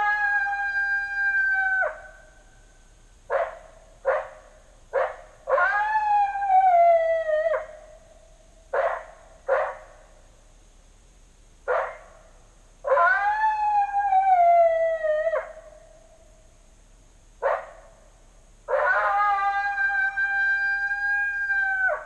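Electronic predator caller playing recorded coyote vocalizations: long howls of two to three seconds with abrupt ends, some held level and some sliding down in pitch, with short sharp yips in between.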